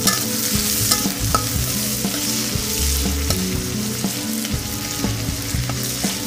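Chopped onions and green chillies sizzling steadily in hot oil in a kadai as they fry towards brown, with a few light clicks scattered through it.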